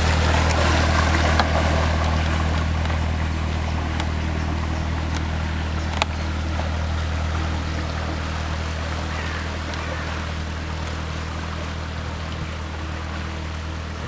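Canal boat engine running steadily at a low, even pitch, slowly fading over the seconds as it moves away.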